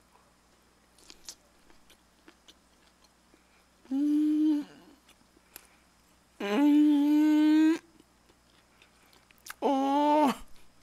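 A man hums 'mmm' three times with his mouth full while chewing tuna sushi, each hum on a steady pitch, the middle one the longest. Faint wet chewing clicks come in between.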